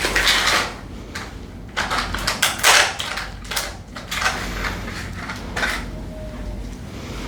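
Irregular rustling and light clicking, a string of short bursts that thins out near the end.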